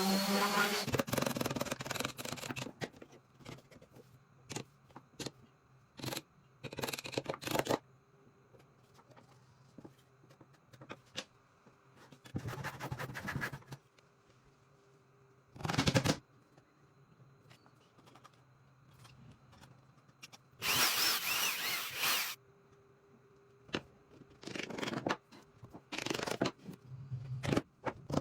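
Intermittent bursts of woodworking tool noise, each lasting one to three seconds and separated by quiet gaps. A faint steady hum runs underneath.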